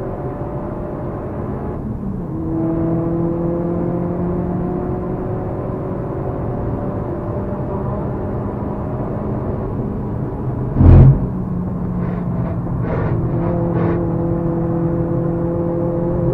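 Ford Focus RS Mk1's turbocharged four-cylinder engine pulling hard, heard from inside the cabin, its pitch climbing slowly with a brief break about two seconds in. About eleven seconds in there is a loud thump, the loudest sound here, followed by a few sharp knocks before the engine note settles again.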